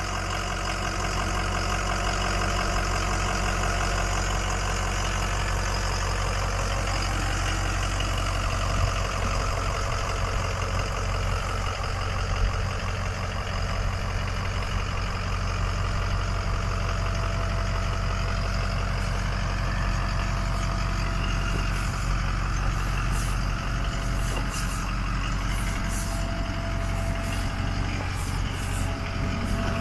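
Ford 6.0 Powerstroke V8 turbodiesel fitted with a KC Stage 1 turbo, idling steadily.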